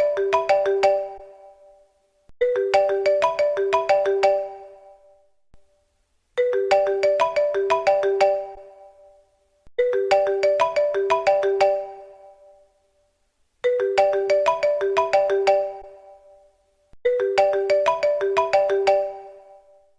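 A mobile phone ringtone ringing: a short melody of bright, bell-like notes that repeats about every three to four seconds, each phrase fading out before the next one starts.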